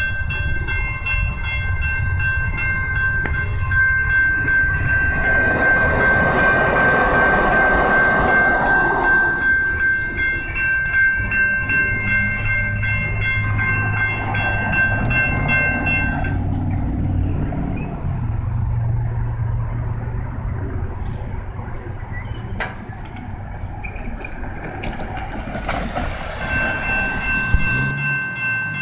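Electronic railroad-crossing bells ringing steadily over the rumble of a passing train. The bells stop a little past halfway and start ringing again near the end.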